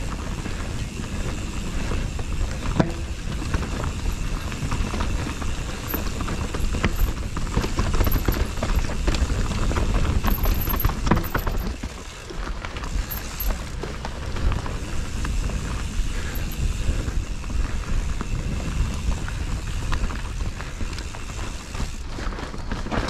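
Mountain bike ridden over a rough forest trail: wind buffeting the microphone as a heavy rumble, with tyres on dirt and roots and the bike rattling and knocking throughout.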